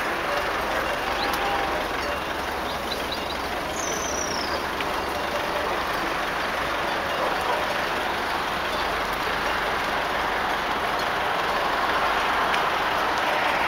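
Steady noise of heavy road traffic.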